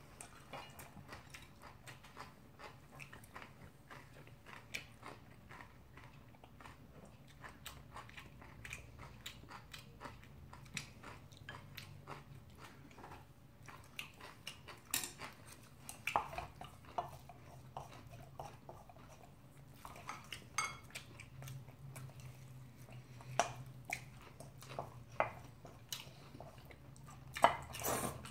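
Close-up chewing and smacking of mouthfuls of bibimbap, with scattered clicks and scrapes of a spoon against a stainless steel mixing bowl and of chopsticks on a ceramic bowl. The clicks grow louder in the second half, the loudest just before the end.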